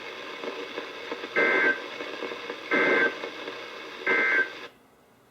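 NOAA Weather Radio end-of-message SAME data burst, played through a weather radio's speaker: three short two-tone digital warbles about 1.4 s apart over the broadcast's hiss. The broadcast audio then cuts off to near silence a little before the end.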